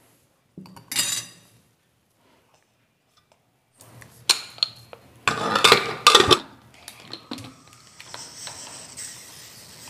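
Metal clatter and clanks of an aluminium pressure cooker being handled: a short clatter about a second in, then a run of loud clanks and scrapes in the second half. A faint steady hiss comes in near the end.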